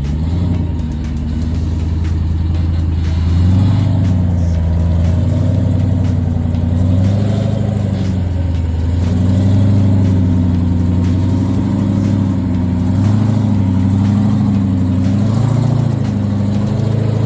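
Rock-crawling Jeep's engine revving up and down under load as it climbs an obstacle, with louder swells about a third and halfway through.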